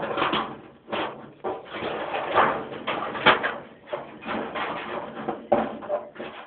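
Scissors snipping through a piece of thin tin sheet: uneven rasping cuts with louder snips about two, three and five and a half seconds in.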